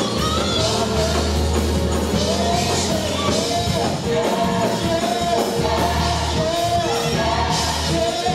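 Gospel music: voices singing a melody over a band, with long held bass notes underneath.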